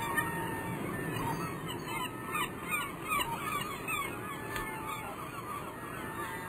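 Birds calling: many short chirping notes in quick succession, busiest in the middle, over a steady outdoor hiss.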